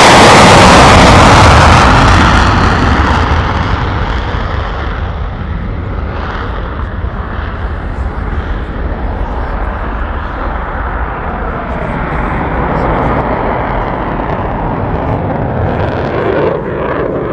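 F-35A Lightning II's single Pratt & Whitney F135 engine roaring in afterburner on takeoff. The roar is loudest as the jet passes in the first couple of seconds, then drops to a steadier, more distant rumble as it climbs away, swelling slightly again near the end.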